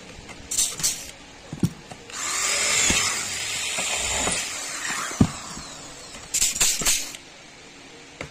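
Handheld power drill run in short trigger bursts, with one longer run of about three seconds whose pitch sweeps as the speed changes. A few sharp knocks fall between the runs.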